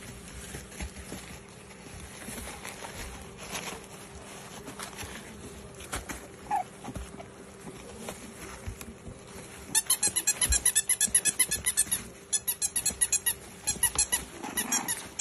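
A baby rattle toy shaken hard in quick bursts, starting about two-thirds of the way in and pausing briefly twice. Before that, only faint scuffling of puppies moving on a puppy pad.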